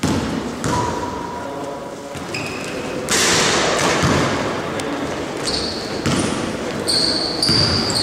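A basketball bouncing on a gym floor during a game, with repeated thuds in a large hall. Short high squeaks come several times in the second half.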